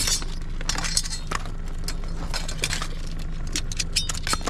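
Irregular clinks and rattles of metal tongs reaching into a barnacle-crusted stone crab trap to grab the crabs, over a steady low rumble.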